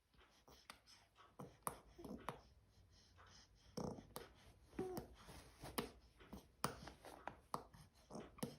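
Six-month-old baby making short, quiet grunts and squeaky mouth noises, mixed with a scatter of small clicks and rustles from his movements.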